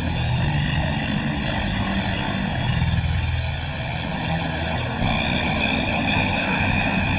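Rock music playing loudly in a sustained, droning passage with no beat breaks.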